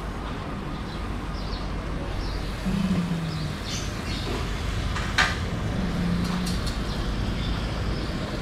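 Steady low rumble of street traffic, with a single sharp click about five seconds in and a couple of brief low hums.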